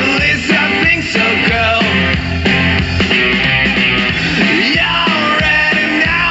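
Rock song with singing played through a JBL Charge Essential 2 portable Bluetooth speaker.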